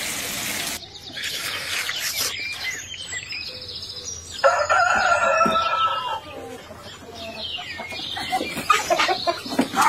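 Chickens in a pen: a rooster crows once, a single call of about a second and a half starting around four and a half seconds in. Clucks and short squawks follow near the end as the flock is disturbed.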